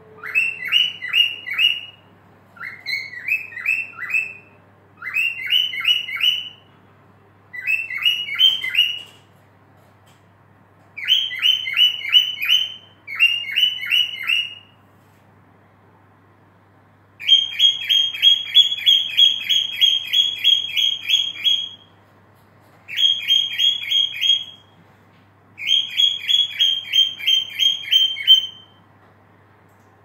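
Cockatiel singing: phrases of quick, repeated whistled notes, each note sweeping upward, about four or five a second. The phrases last one to two seconds with short pauses between them, and the longest, about four seconds, comes a little past the middle.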